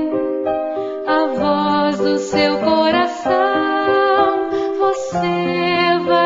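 Background music: a gentle song with a voice singing held notes over a soft instrumental accompaniment.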